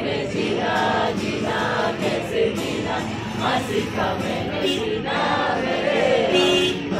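A group of young people singing a Hindi song together in unison, accompanied by a strummed acoustic guitar.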